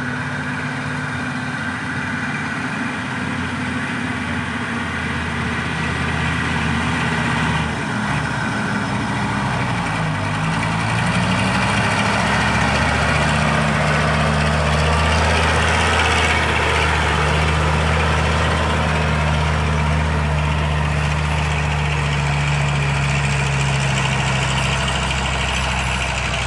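Heavy diesel engine running steadily. About eight seconds in, its pitch sags and then climbs back, and from about twelve seconds on it runs louder.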